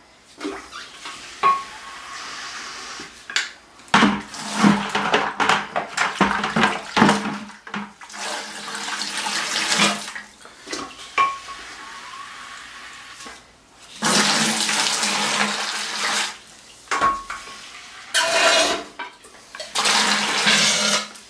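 Water gushing and splashing into a plastic bucket in several bursts of a few seconds each, with a few short knocks between, as the water left in the old toilet is drained out through a tube.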